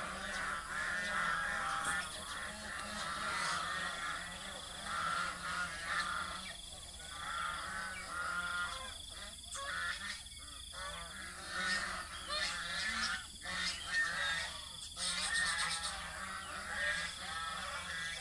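A flock of domestic geese honking and calling, many short overlapping calls with no break.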